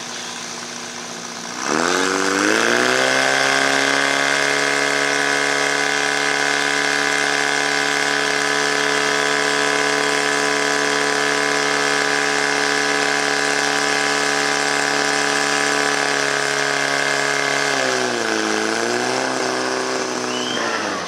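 Portable fire pump's engine: idling, then opened up to full throttle about two seconds in and held at a steady high pitch. Near the end it drops, surges briefly, and falls back at the very end.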